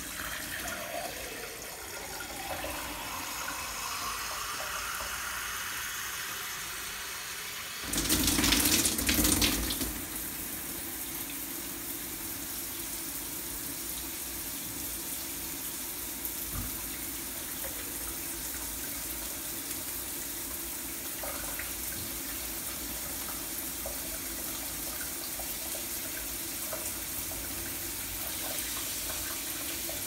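Water spraying from a micro-fine-bubble shower head into a glass pitcher: a steady hiss of spray, with a tone that rises over the first several seconds as the jug fills. About eight seconds in comes a louder burst lasting about two seconds.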